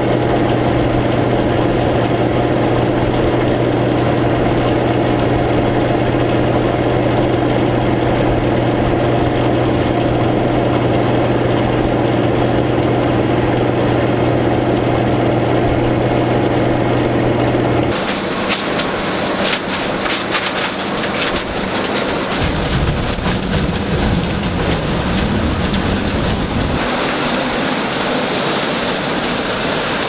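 1977 Gleaner M2 combine running with shelled corn pouring from the fill auger into the grain tank: a steady machine hum over a constant low drone. About two-thirds through, the sound changes abruptly to a rougher, noisier rumble with crackling as the combine's corn head works through standing stalks.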